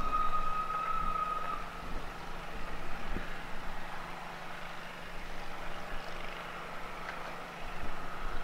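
Steam whistle of a Beyer-Peacock 2-4-0T tank locomotive: one long steady blast that stops about one and a half seconds in, over a steady low rumble of the train working away.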